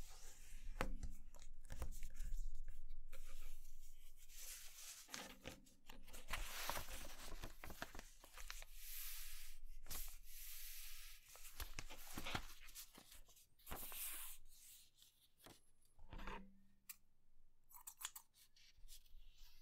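A sheet of paper being handled and folded: rustling and sliding as it is turned and smoothed, with sharp clicks as folds are pressed flat. Near the end, scissors snip through the folded paper in a few short cuts.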